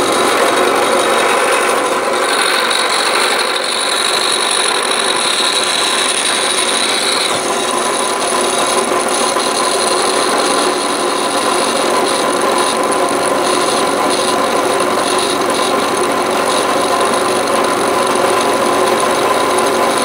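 Drill press running with an end mill milling a metal workpiece held in a cross-slide milling vise: a steady, loud cutting noise, with a higher-pitched whine added from about two to seven seconds in. The vise is not bolted down, so the setup vibrates under the cut.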